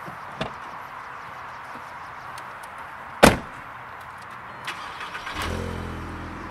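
A car door slams shut a little after three seconds in; near the end the car's engine starts and runs at a steady idle.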